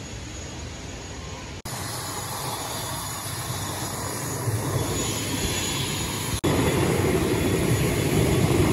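Steady running noise of a twin-engine turboprop airliner on an airport apron. It jumps louder at two abrupt cuts, about a second and a half in and again at about six seconds, and is loudest near the end.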